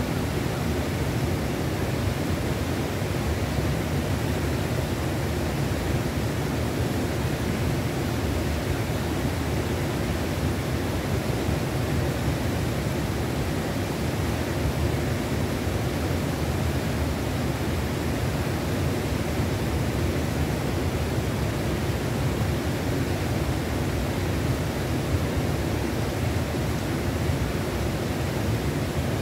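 Steady rush of a mountain river's water flowing over rocks, an even unbroken noise.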